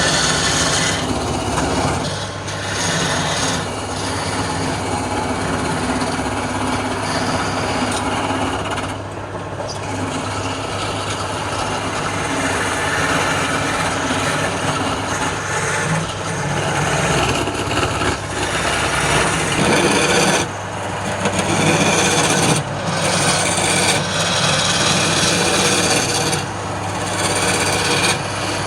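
Wood lathe running, with a tool scraping against the spinning wood: a continuous rasping noise over the motor's steady low hum, briefly letting up a few times as the tool comes off the work.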